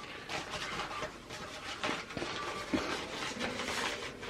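Rustling and crinkling of packaging, with light clicks and knocks, as new vacuum cleaner parts are unwrapped and handled.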